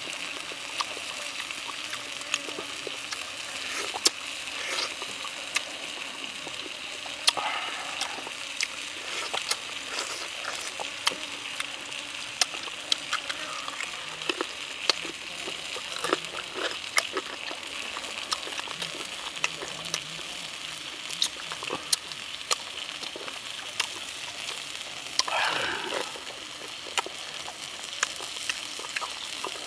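Close-up eating sounds of grilled pork rib being chewed and gnawed: scattered sharp wet clicks and smacks over a steady high background hiss, with one longer, louder noise near the end.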